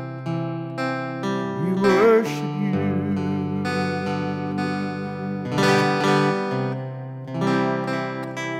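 Acoustic-electric guitar strummed, its chords changing every second or two. About two seconds in a short, wavering wordless vocal note rises over it, the loudest moment.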